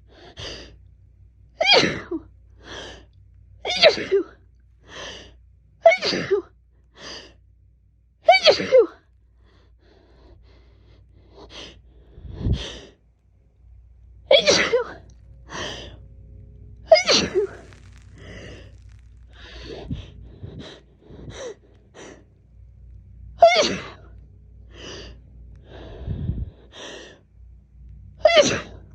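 A woman sneezing over and over in a long allergy fit: about eight loud sneezes, with sharp gasping breaths and smaller sneezes between them and a pause of a few seconds partway through. She puts the fit down to fall allergies.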